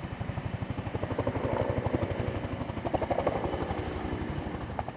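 Bell Huey helicopter's two-blade main rotor chopping in a fast, even beat, with the engine running under it.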